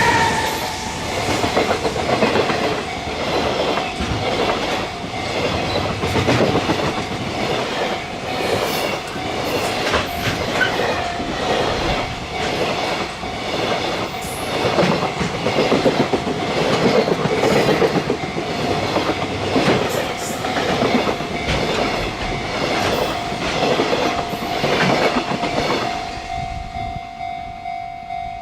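Freight train passing at a level crossing, its wagons clattering rhythmically over the rail joints, with the crossing's alarm ringing in steady repeated pulses. A locomotive horn is just ending at the start. The wagon clatter fades out about 26 seconds in, leaving the crossing alarm.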